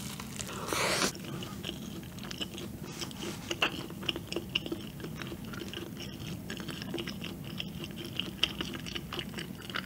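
Close-miked chewing of a soft cream-filled donut: wet mouth smacks and small irregular clicks, with a louder noisy burst just under a second in, over a steady low hum.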